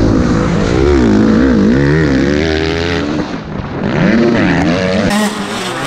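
Motocross bike engine heard from the rider's helmet camera, its pitch rising and falling again and again as the throttle is worked and the bike shifts through gears. Near the end the sound changes abruptly to a different, sharper mix.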